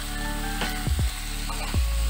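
A wooden spatula stirs and scrapes chunks of beetroot, carrot and potato around a non-stick kadai in repeated strokes, with a light sizzle as the spiced vegetables are sautéed on medium heat. Background music plays underneath.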